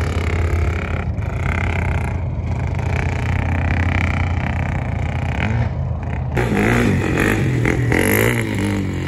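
Sport quad (ATV) engine revving, its pitch rising and falling with the throttle. About six seconds in it gets louder and more uneven as the quad comes closer.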